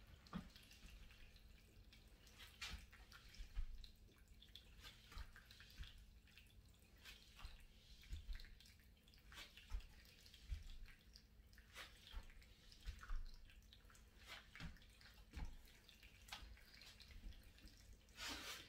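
Mostly quiet room with faint, scattered taps and soft thuds of sneakers stepping and pushing on an exercise mat during resistance-band glute exercises. Near the end there is a louder, brief rustle and thump as the exerciser kneels down onto the mat.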